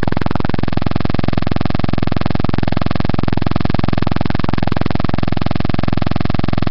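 Loud, steady electronic buzz made of a rapid, even train of clicks, with no speech audible through it: garbled recording audio.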